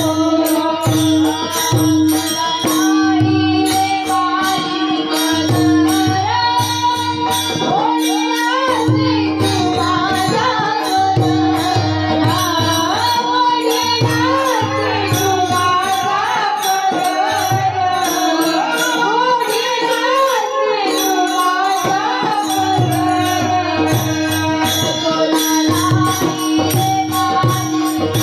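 Indian devotional music: a woman's singing voice with sliding, ornamented melody lines, entering about eight seconds in, over a steady held drone, with a hand drum beating a regular rhythm and jingling percussion keeping time.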